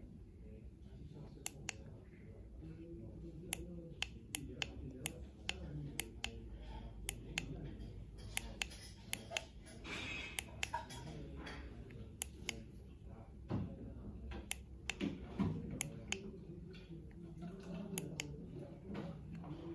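Sharp clicks of the push buttons on a wireless intercom belt pack, pressed over and over at an uneven pace while its menus are stepped through.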